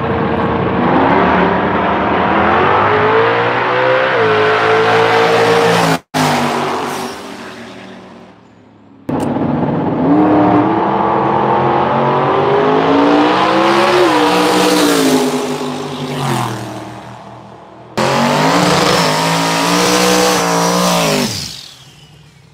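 Drag race car engines at full throttle, their pitch climbing as they pull away, heard in three short stretches that break off and start again abruptly.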